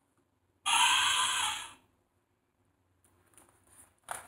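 Elephant trumpeting, a recorded sound played once for about a second from a children's sound book's electronic button, through its small built-in speaker. Faint paper rustles follow as the page is turned.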